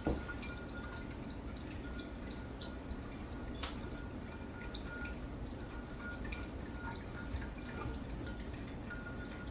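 Quiet room tone: a steady low background hum with a few faint, scattered small clicks and taps.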